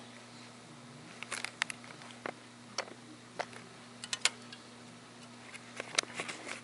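Irregular small clicks and taps of fingers handling a 1:18 die-cast model car as its hood is opened, over a steady low hum.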